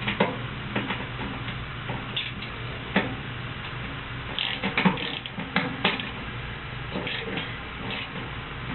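Scattered clicks and knocks of metal parts and tools being handled while working on an HVAC blower motor and its mounting brackets, over a steady low hum.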